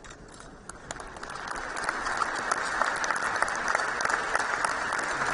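A large theatre audience applauding. The clapping swells over the first couple of seconds into a dense, steady ovation.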